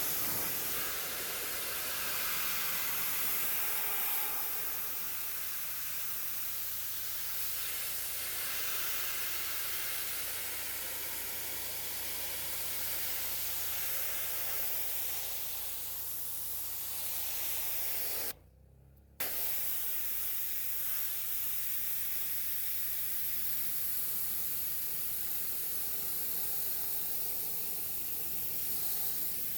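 Pressure washer spraying: a steady hissing jet of water with a low machine hum underneath, cutting out for under a second about two-thirds of the way through.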